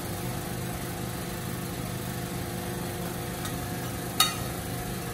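Steady mechanical hum of kitchen equipment while food cooks in a frying pan, with one sharp clink of a metal utensil against the pan about four seconds in.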